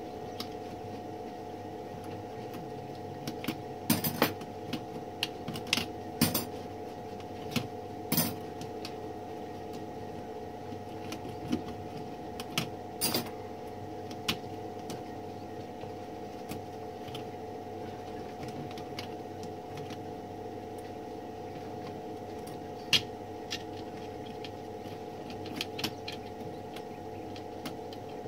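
Small metal parts and tools clicking, tapping and clinking as a typewriter is worked on, in scattered clusters of sharp clicks over a steady low hum.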